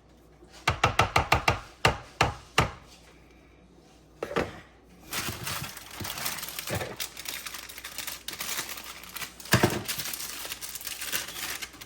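A kitchen utensil knocking sharply against a dish, a quick run of about eight taps followed by a few single knocks, then a longer stretch of scraping and rustling as the pot pie filling is worked into the pie crust.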